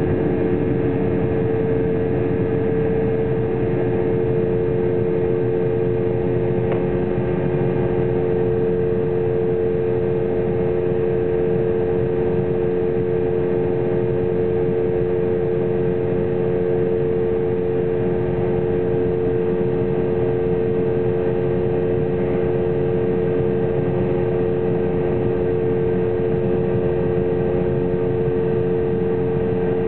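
Cabin noise of an Embraer 190 in flight shortly after take-off, heard from a seat near the front: a steady rush of air and the drone of its GE CF34 turbofan engines. A hum holds the same pitch throughout.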